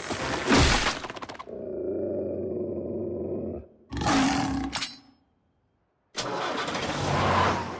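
Cartoon sound effects: a loud noisy burst, then a low droning rumble for about two seconds, another short burst, a second of dead silence, then a rushing noise.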